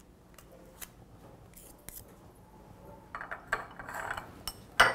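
A table knife scraping pork lard off a metal spoon, with faint light clinks of metal on metal, a denser stretch of scraping about three seconds in, and a sharp clack near the end.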